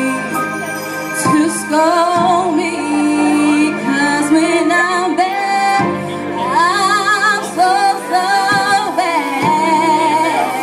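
A woman's voice singing a song with vibrato over a steady accompaniment of held chords, which change every few seconds.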